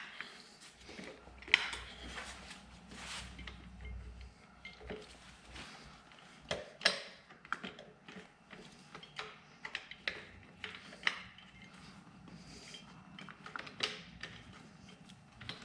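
Metal tools and engine parts clinking and knocking as they are handled during an engine teardown, irregular sharp clicks with a few louder knocks.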